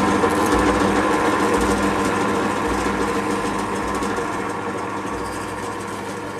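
Benchtop drill press motor running steadily as the bit bores into a plywood table, a steady hum of several tones that slowly gets quieter.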